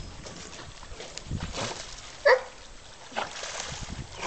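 A poodle gives one short, high yelp about two seconds in, with fainter whining around it: a dog crying with impatience while it waits its turn to swim.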